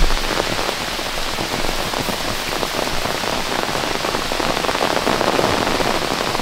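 Heavy rain falling steadily: a dense hiss made of many separate drop hits.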